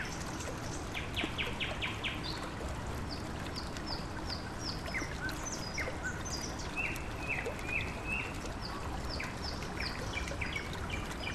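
Small songbirds calling in several runs of short, high chirps, one series of notes dropping in pitch, over a steady hiss of flowing river water.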